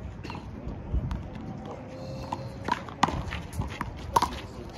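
Handball rally: a small rubber ball slapped by hand and smacking off a concrete wall, several sharp slaps a second or so apart.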